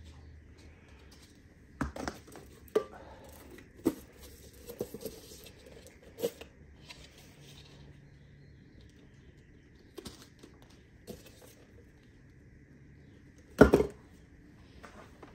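Handling sounds at a workbench: clear plastic humidity-dome cups and woody fig cuttings being moved and set down, giving a scattered series of light plastic clicks and knocks. The loudest clatter comes near the end.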